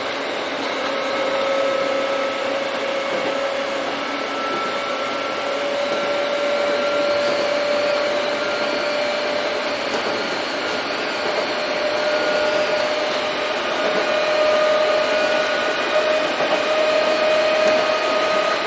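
Electric commuter train running on jointed rail, heard from the driver's cab: the traction motors and gears give a steady whine over the rumble of the wheels, its pitch rising slowly as the train gathers speed.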